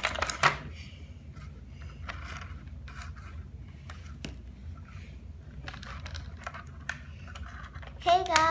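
Scattered light clicks, taps and scrapes of small objects being handled, sharpest just at the start, over a low steady room hum, with a short high-pitched child's voice near the end.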